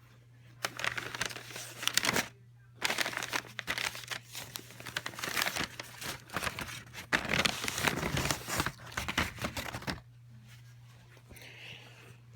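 Paper envelope and paper vacuum-bag packaging crinkling and rustling in irregular spurts as they are handled, stopping about ten seconds in.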